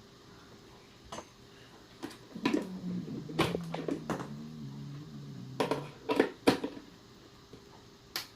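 Plastic clicks and knocks from a multi-plug power strip being handled and its plug pushed into a wall outlet: a scattered series of sharp clicks, bunched in the middle. A low wavering hum runs under them for about three seconds in the middle.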